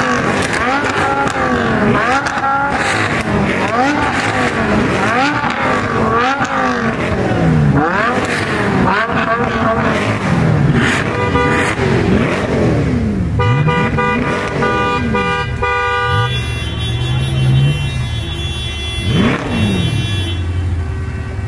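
High-performance car engines revving hard again and again, the pitch climbing and dropping with each rev. From about eleven seconds in, a car horn sounds in long steady blasts over the engines, and near the end a car sweeps past.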